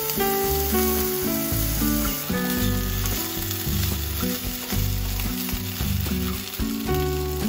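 Chicken pieces sizzling in a hot nonstick frying pan while a wooden spatula stirs and turns them. Background music with held, stepping notes over a steady bass plays over the frying.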